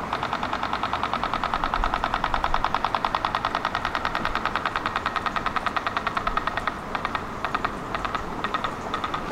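A rapid, even ticking or clicking signal, about ten sharp ticks a second, that breaks up into slower, irregular ticks near the end.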